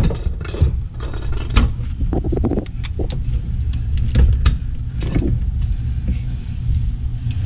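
Scattered clinks and knocks of metal tools and the camera being handled under a car, over a steady low rumble.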